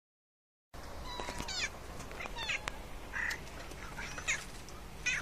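Cats meowing: four or five short, high-pitched, wavering mews, spaced about a second apart.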